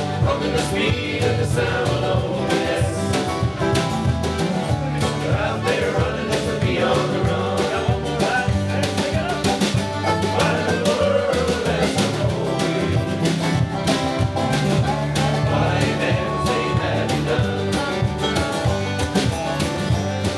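A band playing a country song with guitar over a steady beat and bass line, possibly an instrumental break between sung verses.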